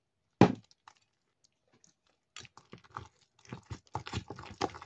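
Boiled potatoes and milk being pounded with a hand potato masher in a stainless steel pot: a single knock about half a second in, then quick, uneven squelching strokes from about halfway through.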